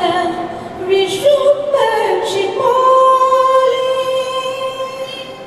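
A woman singing a wordless humming melody, unaccompanied, sliding between notes and ending on one long held note that fades near the end.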